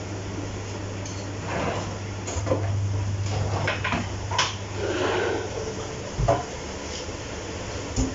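Kitchenware clattering on a counter: a run of clinks and knocks from a tray, chopping board and utensils being handled, with a louder knock about six seconds in and another near the end, over a steady low hum.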